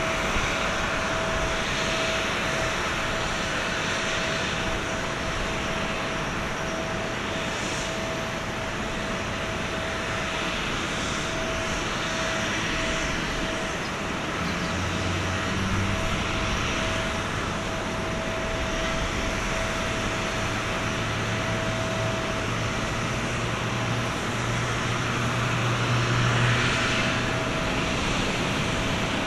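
Airbus A350-900 airliner at pushback: a steady jet hiss with one continuous whining tone, joined about halfway through by a low drone that grows louder near the end.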